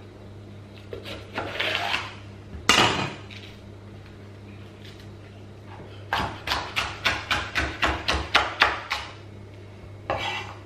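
Kitchen knife cutting red peppers on a wooden chopping board: a few scattered slices and knocks at first, then a quick, even run of about a dozen chops, roughly four a second, and one last chop near the end.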